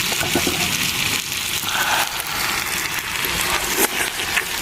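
Peas cooking down nearly dry in a small pot, sizzling steadily, with a few light clicks.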